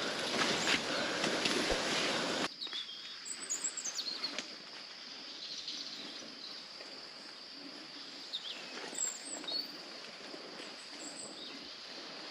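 Rainforest ambience: a few short bird chirps over a quiet hiss and a steady high-pitched drone. For the first couple of seconds a louder rushing noise sits over it, then cuts off abruptly.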